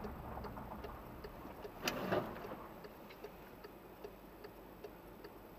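Car turn-signal indicator ticking steadily inside the cabin, a little over two clicks a second, over faint engine and road hum. One sharper knock comes about two seconds in.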